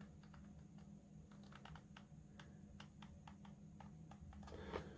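Near silence with faint, irregular light clicks and taps from handling the plastic door-handle parts and hot glue gun, over a low steady hum.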